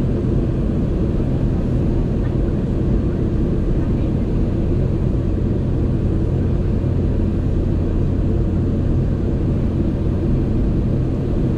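Steady cabin noise of a Boeing 717-200 airliner climbing out after takeoff, heard from inside the cabin: a constant low drone from its rear-mounted Rolls-Royce BR715 turbofans mixed with airflow over the fuselage.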